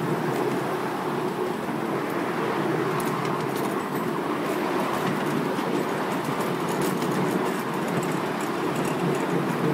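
Miniature railway train running along its track, heard from a passenger car: a steady rumble of wheels on rail, with light clicking from about three seconds in.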